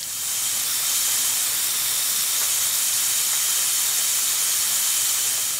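Steady hiss of water sprinkled from above, falling onto a bed of gravel and cement, easing off near the end.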